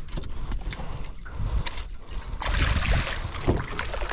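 Water sloshing and splashing against a small fishing boat, with scattered knocks and a low rumble; the splashing grows louder about two and a half seconds in.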